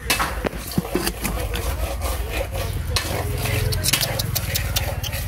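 Metal ladle stirring and scraping cooked rice in an aluminium pot, with repeated clicks and scrapes of metal on metal, over a steady low hum.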